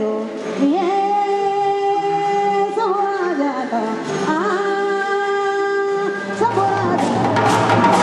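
A woman singing long, held notes with slides between them into a microphone. Near the end, drums come in.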